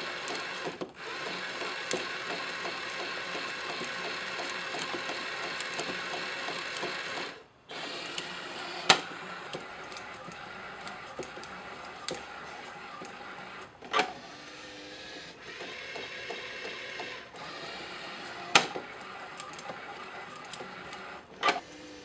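Motorized mechanism of a kinetic scrap-art bird sculpture running with a steady mechanical whir. It drops out briefly about seven seconds in, and four sharp clacks come in the second half.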